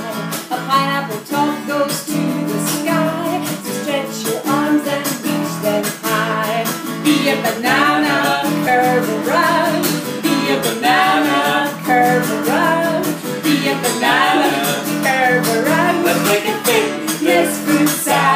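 Acoustic guitar strummed steadily while a woman sings along.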